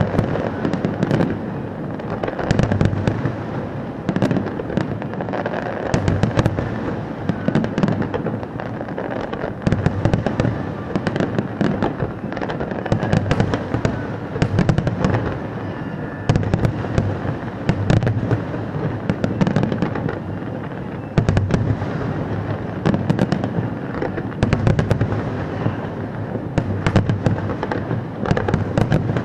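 Fireworks display: a continuous barrage of shell bursts, deep booms every second or two with rapid crackling and popping between them.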